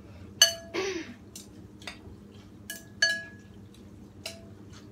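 Chopsticks and a spoon clinking against a white ceramic bowl as noodles and vegetables are mixed: a handful of sharp ringing clinks, the loudest about half a second in and again about three seconds in.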